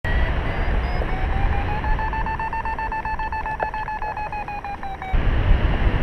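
Paragliding variometer beeping several times a second, its pitch rising and then levelling off, the sign of the glider climbing in a thermal, over wind noise on the microphone. The beeping cuts off abruptly about five seconds in, leaving the wind louder.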